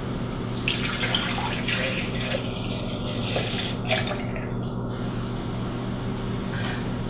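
Almond milk pouring in a thin stream from a measuring cup into a Vitamix blender jar, splashing onto the liquid already in it.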